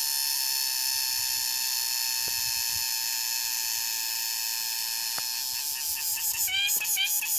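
A steady high-pitched buzzing drone, insect-like, that gives way to rapid repeated chirping about six and a half seconds in.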